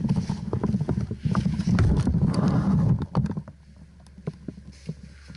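Rumbling, knocking handling noise on a body-worn action camera from movement, with scattered sharp clicks; it drops to a quieter stretch about three seconds in.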